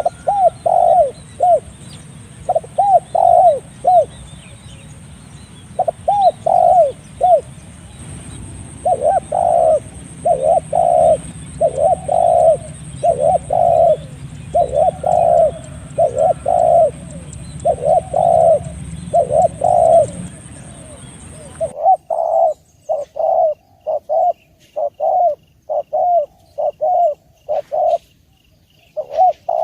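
Spotted dove (tekukur) cooing over and over in short repeated phrases. About two-thirds of the way through, the background hiss drops away abruptly and the coos continue in a quicker, even series.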